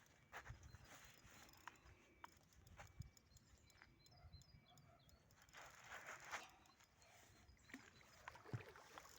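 Near silence with faint, scattered clicks and knocks; the most noticeable come about six seconds in and near the end.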